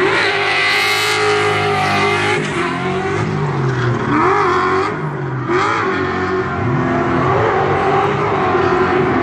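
2015 Ford Mustang RTR drift car's engine revving up and down repeatedly, with tyres squealing as the car drifts.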